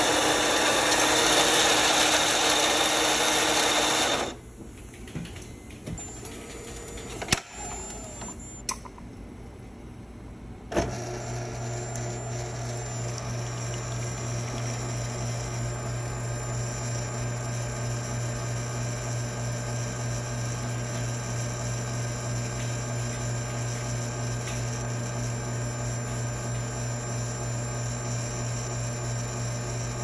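Cimbali M1 superautomatic espresso machine making a shot: the built-in grinder runs for about four seconds, a few clicks and clunks follow as the brew unit works, then about eleven seconds in the pump starts with a steady low hum that holds while the espresso pours.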